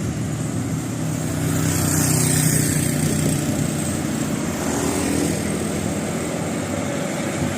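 A motor vehicle engine running with a steady low drone, with a swell of road noise about two seconds in.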